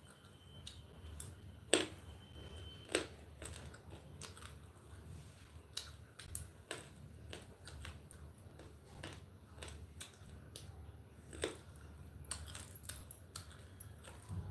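Irregular faint clicks and taps over a low steady hum, with a brief thin high tone near the start.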